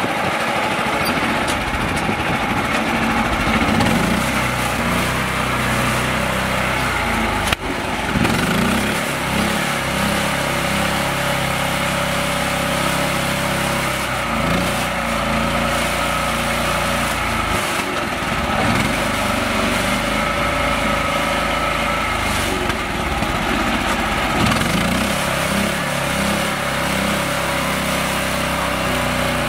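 Small engine of a mini tractor running under load as it tries to pull out of mud, its pitch rising and falling several times as it is revved. One sharp knock about seven and a half seconds in.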